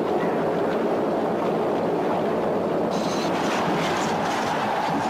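Chariot race sound effects: many horses galloping and chariot wheels rumbling over a sand track in a steady, dense din. About three seconds in, sharper cracking and clattering join in as a chariot crashes.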